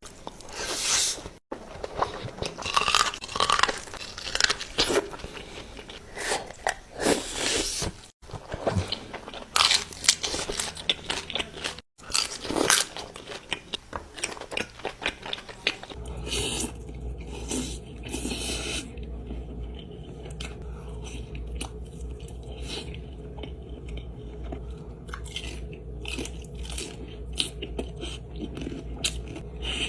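Close-miked eating sounds of a seafood boil: biting, crunching and chewing, in several short segments broken by abrupt cuts. In the last part the eating is softer, over a steady low hum.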